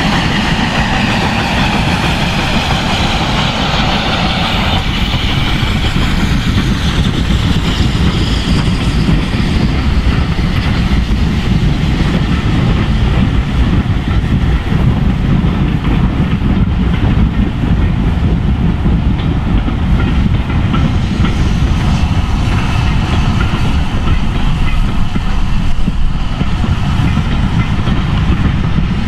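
Steam locomotive hauling a train of coaches past: the engine's sound is strongest in the first few seconds and falls in pitch as it goes by, then the coaches roll past in a steady rumble.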